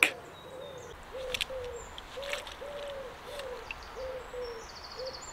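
A bird calling a series of about ten short, low notes, each rising and then falling slightly in pitch, with a fainter high-pitched bird song joining near the end.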